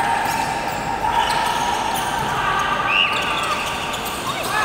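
Basketball being dribbled on a wooden gym court, with scattered thuds and voices echoing around a large indoor arena.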